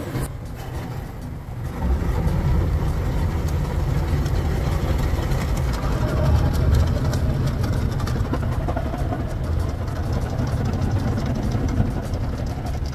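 Automatic car wash running over the car, heard from inside the cabin: a steady low rumble of water and foam being sprayed onto the body, getting louder about two seconds in.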